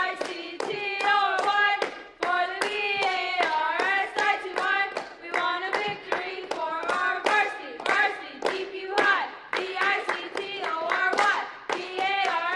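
A group of girls chanting a cheer in unison, spelling out "V-I-C-T-O-R-Y", with sharp hand claps keeping the rhythm.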